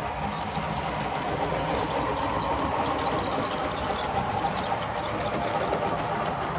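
Model train passenger cars rolling past on the track: a steady noise of wheels running on the rails.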